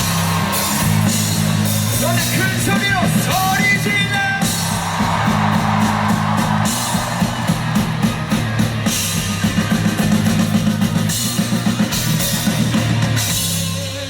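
Rock band playing live: drum kit with regular cymbal strokes over a steady bass line, with electric guitar.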